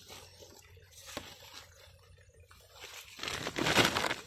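Woven plastic sack rustling and crinkling as a cast net is shaken out into it, with faint scattered rustles at first and a louder stretch of crinkling about three seconds in as the sack is pulled open.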